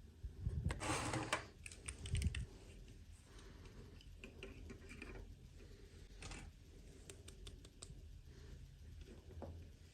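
Small plastic toy packaging handled by hand: a spell of rustling with soft thumps about half a second in, another thump a second later, then scattered light plastic clicks.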